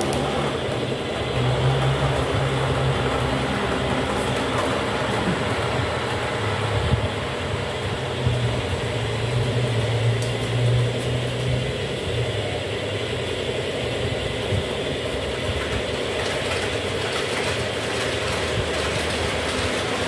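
Model train running on the layout: a steady electric motor hum that swells and fades slightly, over the rolling noise of wheels on the track.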